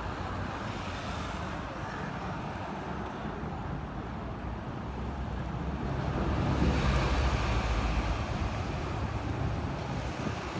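Hong Kong double-decker tram running along its tracks, heard from the upper deck: a steady rolling rumble mixed with road traffic, growing louder about six seconds in.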